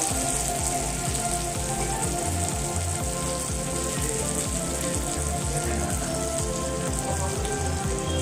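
Fish frying in hot oil with a steady sizzle, over background music with a steady low beat that starts right at the beginning.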